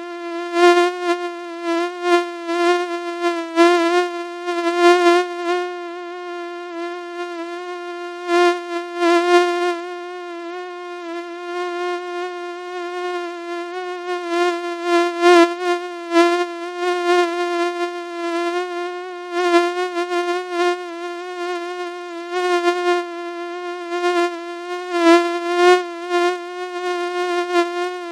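Mosquito-like whining buzz held at one low-mid pitch with many overtones, its loudness wavering and flickering as with an insect in flight. It is fully audible, not ultrasonic.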